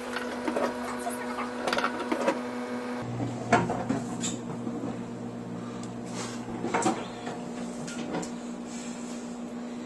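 Microwave oven running with a steady hum, a deeper hum joining about three seconds in, while kitchen things are knocked and clattered about in handling.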